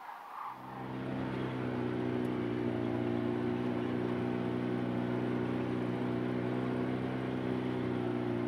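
Vehicle engine and road drone heard from inside the cab while driving, a steady low hum that sets in about half a second in and holds an even pitch.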